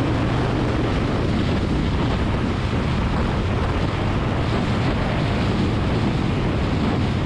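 Wind rushing over the microphone of a Harley-Davidson cruiser at road speed, with the V-twin engine's low, even hum underneath.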